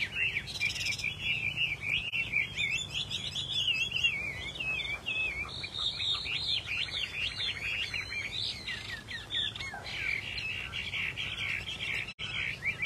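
Chinese hwamei singing: a continuous, rapid run of high, varied whistled notes sweeping up and down, with a brief rasping rattle about half a second in and fast trills a few seconds later.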